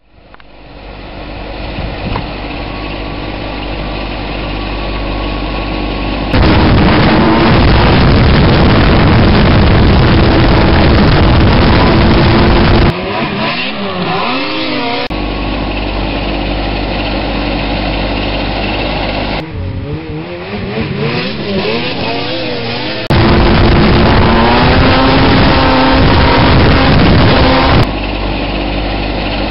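2008 Polaris Shift snowmobile engine running and revving up and down as it is ridden, its loudness jumping abruptly several times. Near the end a snow groomer's engine runs steadily.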